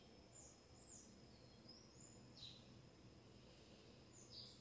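Near silence: quiet room tone with a handful of faint, short, high bird chirps and a faint steady high tone underneath.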